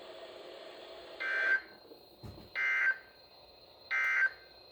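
Emergency Alert System end-of-message data bursts on a NOAA Weather Radio broadcast: three short, buzzy digital squawks about a second and a quarter apart. They signal the end of the weekly test message.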